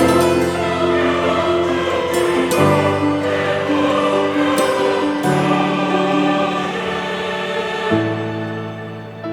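Background music: a choir singing sustained chords that change every few seconds.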